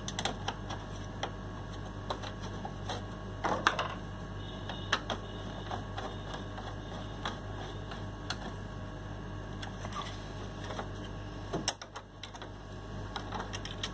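Scattered light clicks and taps of small plastic relays being set back into place and screwed down inside a voltage stabilizer, with a somewhat louder cluster of taps about three and a half seconds in, over a steady low hum.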